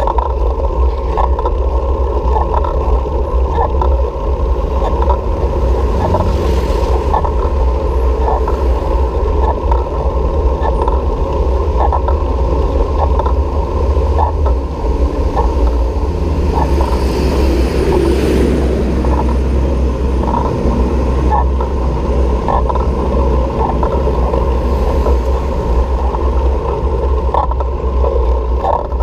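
Wind rumbling on the microphone of a camera on a moving bicycle, with steady road noise, faint regular clicks about once a second, and a vehicle passing about two-thirds of the way in.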